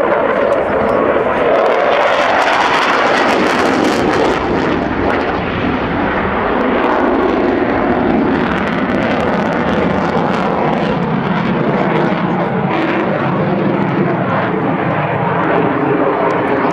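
Saab JAS 39 Gripen fighter's single Volvo RM12 turbofan running loud as the jet flies past, a continuous rushing jet noise with crackle, strongest a few seconds in.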